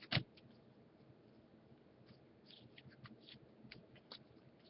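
Faint scattered ticks and rustles of baseball trading cards being flipped through by hand, with one sharper tap just after the start.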